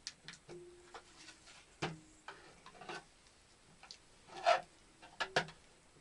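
Scattered light clicks and knocks from hands working at something overhead, with a louder scraping rustle about four and a half seconds in and two sharp clicks just after it.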